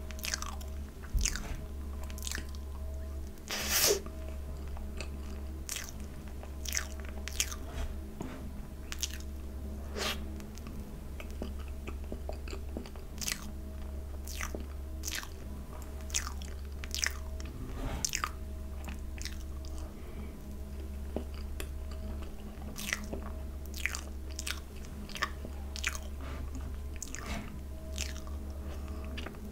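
Close-up chewing of soft whipped-cream cake: wet, sticky mouth clicks and smacks coming irregularly, over a steady low hum.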